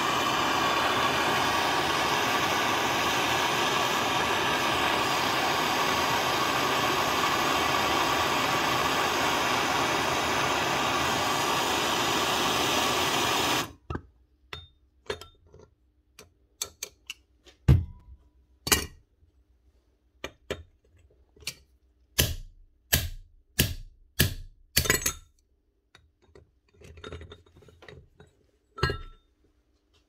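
A hand-held gas blowtorch flame hisses steadily, heating a Rotabroach mag drill's bearing housing to free its worn needle bearing, then cuts off suddenly about 14 seconds in. A scattered run of sharp metal clinks and knocks follows as the hot housing is set down and tapped against a steel sleeve.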